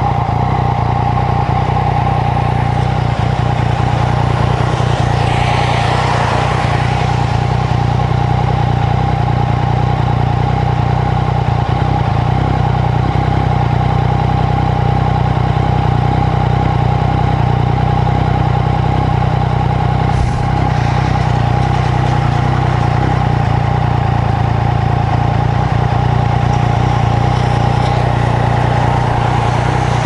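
Yamaha MT-09's three-cylinder engine running steadily at low speed in slow, stop-and-go traffic, with an even, unchanging note.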